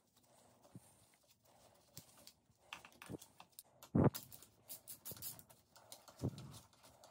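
Light clicks and knocks of a hand-held socket driver and metal parts being handled while the speedometer is unbolted from a dirt bike's handlebar mount. A few louder knocks come about three, four and six seconds in.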